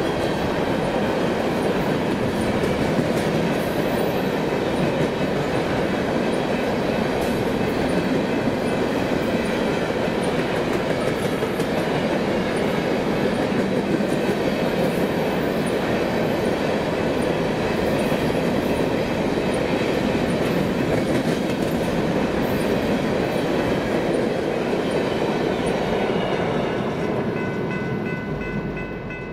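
Freight train cars rolling steadily past with a continuous rumble and wheel clatter on the rails, fading out near the end.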